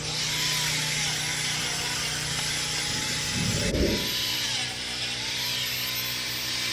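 A powered tool running steadily with a harsh hiss and a whine that wavers in pitch. The sound breaks off abruptly with a thump a little under four seconds in and starts again.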